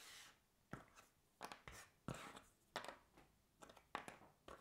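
Faint, irregular clicks and light rustles of cardboard jigsaw puzzle pieces as a hand sifts through a loose pile of them on a wooden table, roughly one click every half second.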